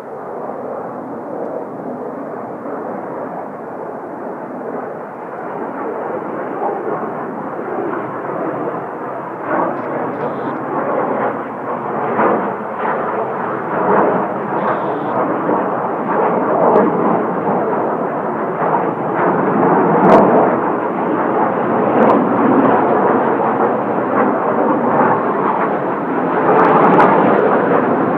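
Kawasaki T-4 jet trainers taking off in formation: rough, crackling jet noise that grows steadily louder, with a few sharp clicks in the second half.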